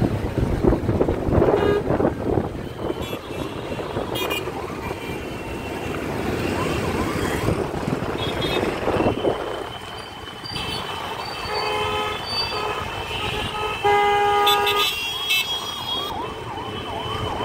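Road traffic heard from inside a moving car: a steady rumble of engines and tyres, with vehicle horns tooting. There are a few short honks about twelve seconds in, then the loudest horn blast a couple of seconds later.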